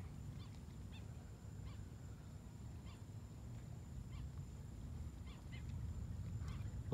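Faint outdoor night ambience: a steady low rumble with short, faint animal calls every second or so, over a thin steady high tone.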